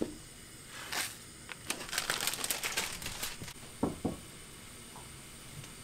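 Crinkling of packaging being handled in a small room, a dense run of crackles in the middle, with a few light clicks before it and two soft knocks near the end.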